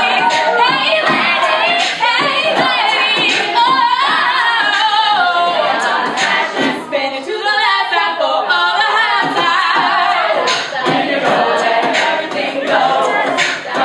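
All-female a cappella group singing a pop-R&B arrangement: a solo voice over layered backing voices, with vocal percussion keeping a steady beat.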